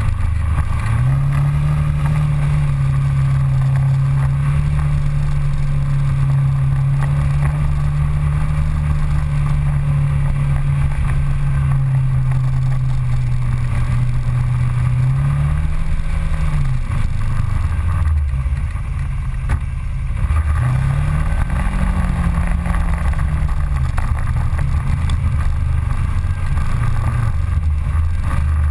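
Polaris Ranger side-by-side UTV engine running steadily while driving on a dirt trail. Around the middle the engine pitch climbs and drops, the sound eases off for a couple of seconds, then it picks up again and settles back to a steady run.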